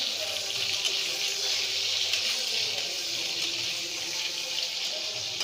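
Cubed potatoes frying in hot oil in a kadai: a steady, even sizzle.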